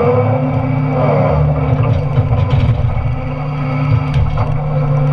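Doosan Solar 255 LC-V excavator's diesel engine running steadily under hydraulic load while its timber shear works, with a few short knocks and cracks over it.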